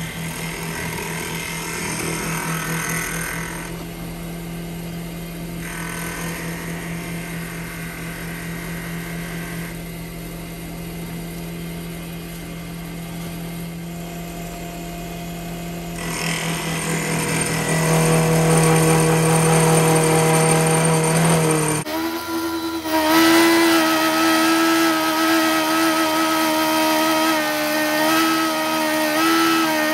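Benchtop wood lathe motor running steadily while a turning tool held in a cross-slide vise is fed into the spinning workpiece, cutting it down. The cutting grows louder about 16 s in. About 22 s in the sound changes abruptly to a louder, steady whine.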